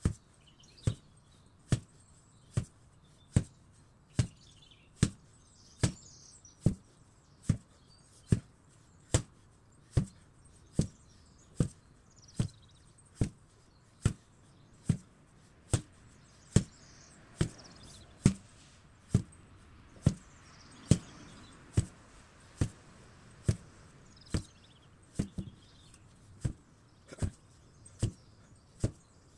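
8 kg sledgehammer struck over and over at a steady pace, a little more than one blow a second, each blow a sharp thud. Birds chirp faintly between the blows.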